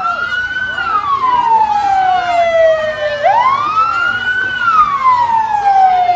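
Emergency vehicle siren on a slow wail. Each cycle rises quickly, holds briefly at the top and then falls slowly, so there is one full fall, a fresh rise about three seconds in, and a second slow fall.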